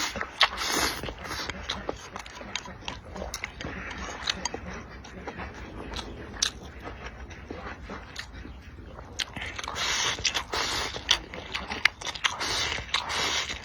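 A person eating close to the microphone: chewing and biting with many small sharp clicks, growing louder and denser for a few seconds near the end.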